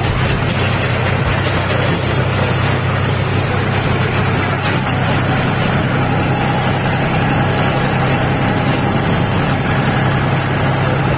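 John Deere tractor's diesel engine running steadily under way, a constant low drone with a broad rushing noise over it.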